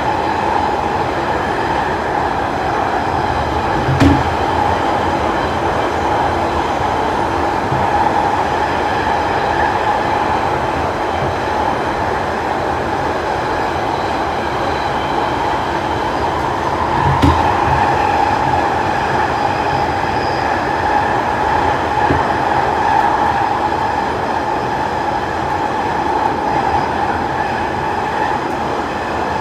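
London Underground Central Line 1992 stock train heard from inside the carriage running through a tunnel: a steady loud rumble with a strong mid-pitched hum over it. Two short thumps from the wheels come about four seconds in and again at around seventeen seconds.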